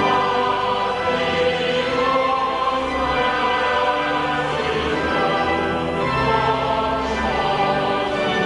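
A choir singing with orchestral accompaniment in long held chords: the national anthem closing the broadcast.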